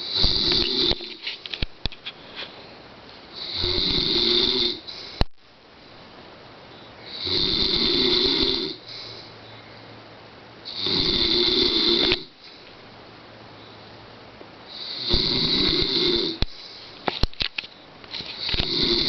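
A man snoring loudly, one snore about every four seconds, each lasting over a second.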